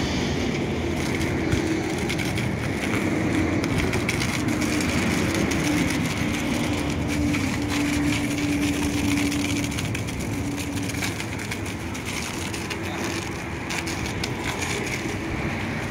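High-pressure washer jet spraying against a truck's cab and front wheel: a steady hissing spray over a low hum that wavers and fades about two-thirds of the way through.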